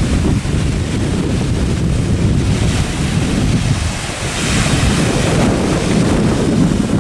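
Wind buffeting the microphone: a loud, irregular low rumble, with a brief hiss rising over it about four to five seconds in.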